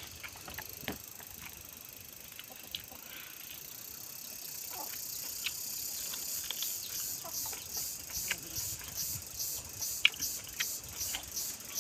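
Close-up eating sounds: fingers working rice in a steel plate with scattered small clicks, then from about halfway steady rhythmic chewing, about three chews a second, as duck meat is bitten and eaten.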